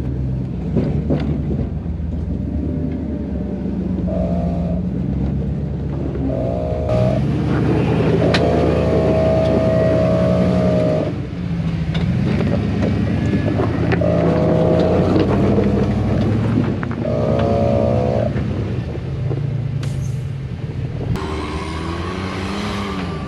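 Jeep rock crawler's engine working under load as it climbs over rocks, revving up and easing off in repeated surges a few seconds apart over a steady low drone.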